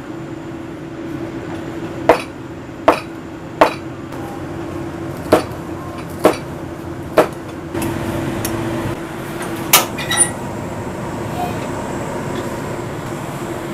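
Chinese cleaver chopping tofu and chillies on a plastic cutting board: a series of sharp knocks at irregular intervals, about eight in all, over a steady low hum.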